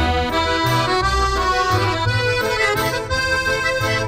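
Background music: held chords over a bass line that moves every half second or so.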